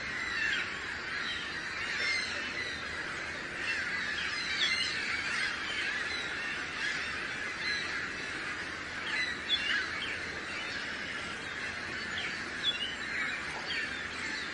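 A flock of birds calling, with many short overlapping calls and chirps in a continuous chatter.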